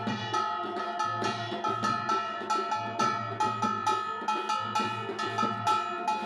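Live devotional procession music: drums and clanging metal percussion beaten in a quick, steady rhythm over a steady held note.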